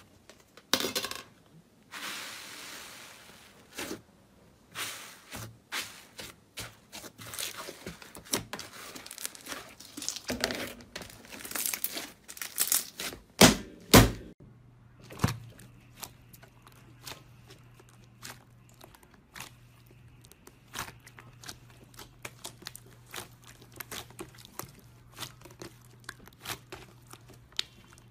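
Slime being pressed, poked and squeezed by hand, giving a run of sticky crackling pops and clicks as air pockets burst, with a few louder snaps near the middle. A steady low hum runs under the later half.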